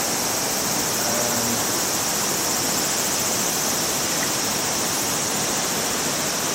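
Waterfall: a steady, loud rush of falling water, even throughout.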